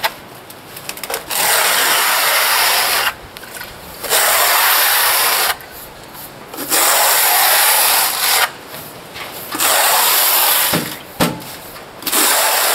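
Steel plastering trowel scraping adhesive across the insulation and mesh in about four long strokes of one to two seconds each, with short pauses between them.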